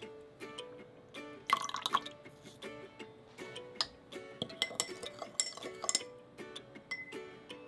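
Light background music over small kitchen sounds: liquid seasonings dripping from a metal measuring spoon into a glass jar, then the spoon stirring and clicking against the glass in the second half.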